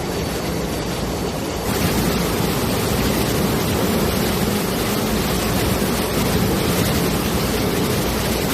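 Water rushing, a steady noise that becomes louder and fuller about two seconds in.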